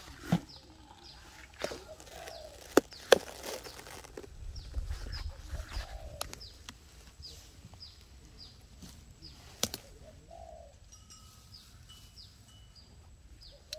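Birds calling in short, high, falling chirps, about two a second through most of the stretch, with a few lower calls between them. Four sharp knocks come through: one at the start, two close together about three seconds in (the loudest sounds), and one about ten seconds in.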